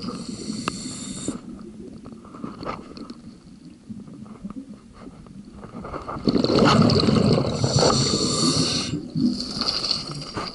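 Scuba diver breathing through a regulator underwater: a hissing inhalation near the start, then a loud rush of exhaled bubbles from about six seconds in, followed by another hissing breath near the end.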